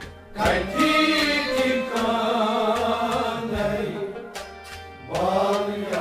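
Sufiana kalam music: a man's voice sings a long, wavering held line that enters about half a second in and a new line about five seconds in. Beneath it run a steady harmonium tone and plucked strings.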